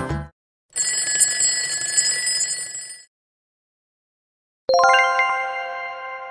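Quiz sound effects: a ringing bell effect for about two seconds as the countdown runs out, then, after a short gap, a single bright chime that rings on and slowly fades as the answer is revealed.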